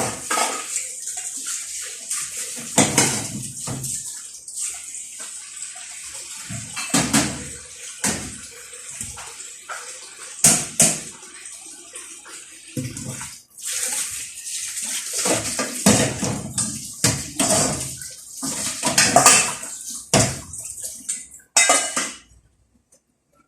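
Splashing water with irregular clattering of dishes and pans being washed, going quiet near the end.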